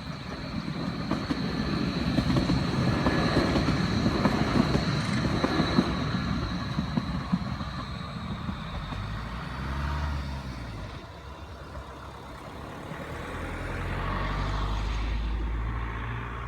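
A Vossloh Tramlink light-rail tram passing: wheels rumbling on the rails with a steady high whine over them, easing about halfway through into a lower electric hum that swells again near the end.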